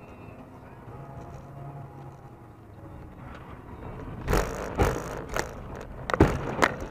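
Low, steady vehicle noise, then from about four seconds in a run of about six loud bangs and crunches over two and a half seconds, typical of a car collision.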